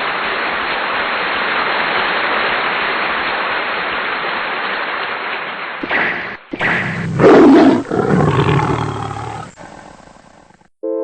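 A steady rushing noise, then a big cat roaring from about six seconds in, with the loudest roar about seven seconds in, dying away before the end.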